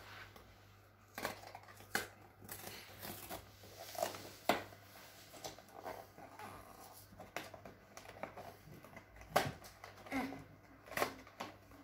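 Cardboard cookie-mix box being pulled and torn open by hand: scattered short tearing and crinkling sounds, with a louder rip near the end.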